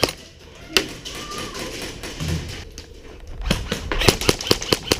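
Airsoft guns firing: one sharp shot about a second in, then a quick uneven string of shots over the last second and a half.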